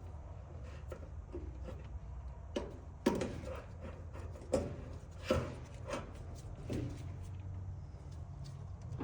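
A handful of short knocks and clatters, as of metal dryer parts or tools being handled and set down, the loudest about three, four and a half, and five seconds in, over a steady low hum.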